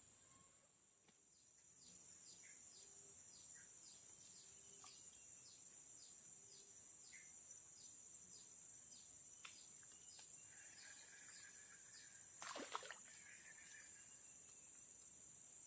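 Faint tropical forest ambience: insects droning steadily at a high pitch, with a series of short falling chirps repeated about twice a second. A brief louder noise stands out near the end.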